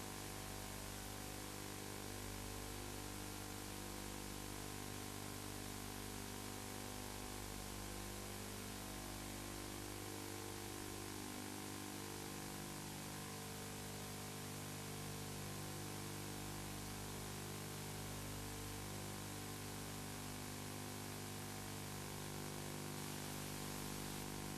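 Steady hiss with a low electrical hum, the noise floor of an old analogue video recording.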